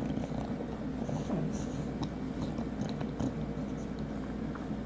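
English bulldog puppy chewing and gnawing on a string, with irregular small wet clicks and crackles over a steady low rumble.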